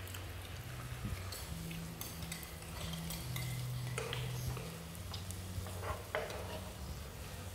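Chopsticks stirring and turning vegetables in a hot pan on a portable gas stove: light sizzling with scattered clicks of the chopsticks against the pan. A steady low hum runs underneath.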